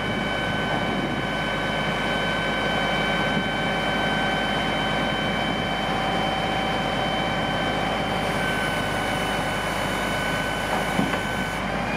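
Ford L9000 dump truck's diesel engine running steadily, with a steady high whine from the hydraulics while the dump body is lowered.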